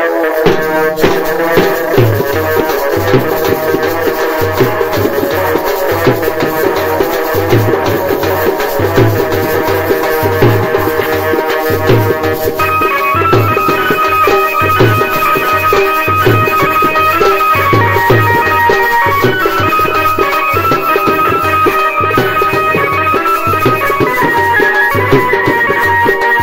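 Instrumental folk band music: an electronic keyboard plays a melody over a steady beat on a large bass drum and a side drum, with a hand rattle shaken along. About halfway through, a higher keyboard melody line comes in.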